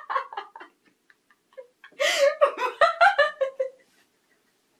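Two women laughing: a short burst, then after about a second's pause a longer run of breathy laughter.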